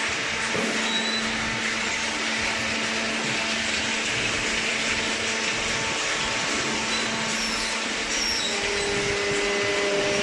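Steady machine running noise: a constant hum with hiss, and a second, higher tone joining near the end.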